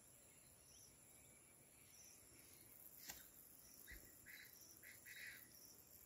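Near silence with faint outdoor ambience: a high chirp repeats about once a second, a sharp click comes about three seconds in, and a few short calls follow between about four and five seconds.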